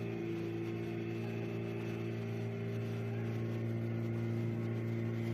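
An old car engine running steadily, a constant low drone with a few steady tones over it.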